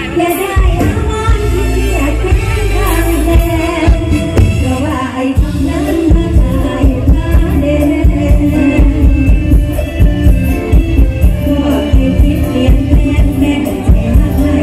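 Live Isan mor lam band playing with a woman singing, amplified over a loud PA with a heavy, steady bass-and-drum beat.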